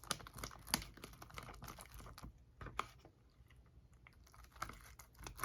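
Homemade deodorant-and-glue slime being mixed as the borax activator sets it: faint, irregular little sticky clicks and crackles.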